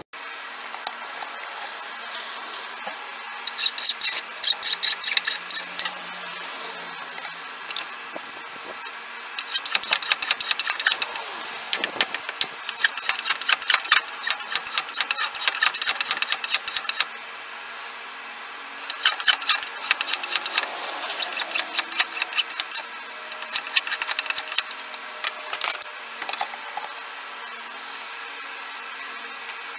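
A hand file rasping on a hickory spatula handle, shaping it down to the metal tang. It comes in four runs of quick strokes, a few seconds each, with short pauses between.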